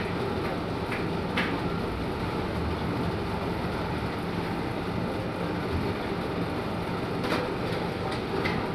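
A soft-serve ice cream machine running, its refrigeration compressor and cooling fan giving a steady mechanical hum under street noise. Two short clicks come through, one about a second and a half in and one near the end.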